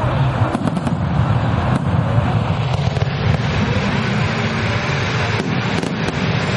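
Rows of ground fountain fireworks (gerbs) spraying sparks at the water's edge, making a loud, steady rushing hiss. A few sharp pops or crackles cut through it, two of them close together about five and a half seconds in.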